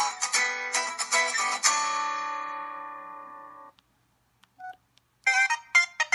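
Samsung Convoy 2 ringtone: a guitar tune of quickly picked notes that ends on a chord ringing out and fading over about two seconds. After a short silence and two faint short tones, the next ringtone's notes start near the end.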